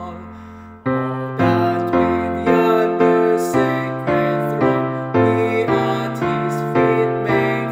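Piano-sounding keyboard playing a hymn in block chords, struck about twice a second with each chord fading, as an instrumental interlude between sung verses. A held chord dies away first, then the playing picks up about a second in.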